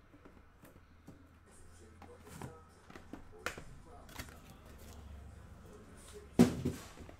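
Cardboard shipping case being handled after the boxes come out: scattered light knocks and rustles, then one sharp thump about six seconds in, the loudest sound.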